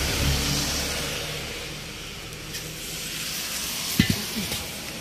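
A vehicle engine running nearby and fading away over the first two seconds, under a steady noise haze, then a single sharp knock about four seconds in.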